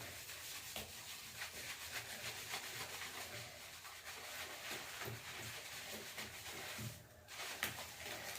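Hands lathering shampoo through long hair: a soft, continuous rubbing made of many small strokes, broken by a brief pause about seven seconds in.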